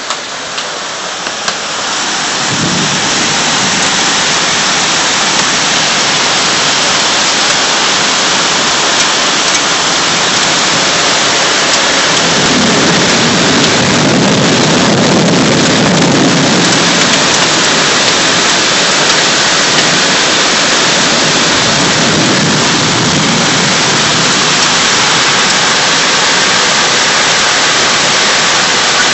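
Heavy rain pouring down, a loud steady hiss that grows louder about two seconds in, with a low rumble swelling up several times, strongest around the middle.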